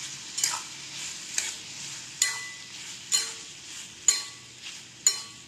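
Metal spatula stirring tomato chunks in a metal kadai, knocking against the pan about once a second, six knocks each with a short ring, over a steady sizzle of frying in oil.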